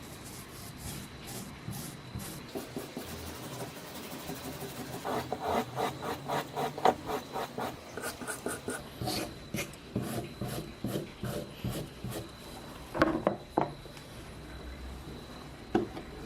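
Repeated hand-rubbing strokes of an abrasive tool on a rusted revolver's metal, about two to three strokes a second and strongest in the middle, with a couple of sharper knocks near the end.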